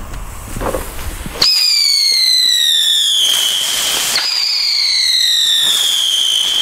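Two Röder Heulsusen whistling whirlers take off one after the other, each giving a loud piercing whistle that falls in pitch as it spins up into the air. The first starts about a second and a half in, and the second about four seconds in.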